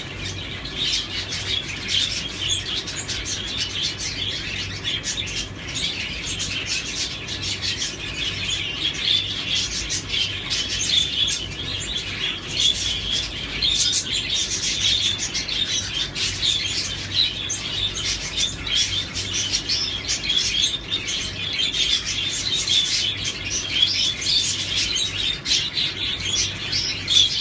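Lovebirds chattering continuously, a dense stream of quick high-pitched chirps, over a faint low steady hum.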